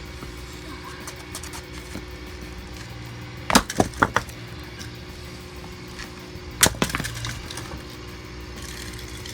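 An alarm clock being smashed: a quick run of about four sharp blows a little after three seconds in, and two or three more near seven seconds.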